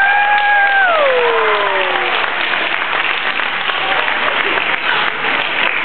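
Audience applause at the end of a children's song. At the start, young children's voices hold a last shouted or sung note that slides down in pitch and dies away about two seconds in. The clapping goes on steadily.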